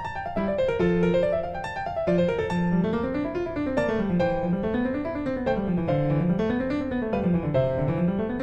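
Background piano music: an arpeggiated accompaniment whose bass notes rise and fall in repeating waves under higher melody notes.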